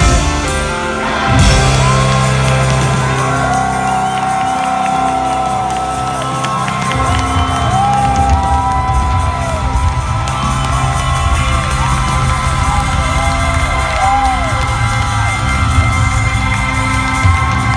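Live rock band holding out the end of a song with sustained chords, a loud hit landing about a second and a half in, while a concert crowd cheers and whoops over it.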